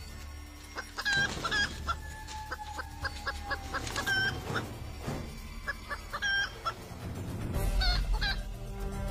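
Red junglefowl (labuyo) calling: short, repeated clucks and sharper notes in groups, with a quick run of notes in the first half and more calls near the end.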